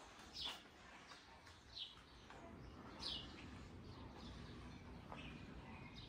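Faint birdsong: several short, high chirps that slide downward in pitch, spaced a second or so apart, over quiet outdoor hush.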